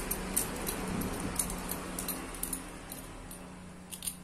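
Light metallic clicks and scrapes as a quick-release skewer is slid through a bicycle front hub's hollow axle, over a steady low hum.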